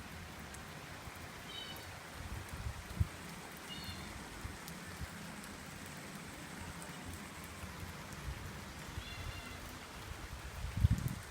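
Steady rain. A few short high chirps come at intervals, and there are soft low thumps, the loudest near the end.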